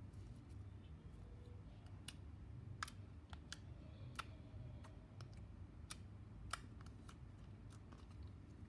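Glitter slime made with clear glue being handled and stretched, giving faint, irregular little clicks and pops.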